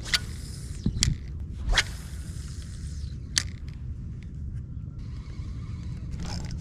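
A cast with a spinning rod and reel: a swish of the rod near the start, then several sharp clicks and taps over the next few seconds, and later the reel turning as the lure is reeled back fast.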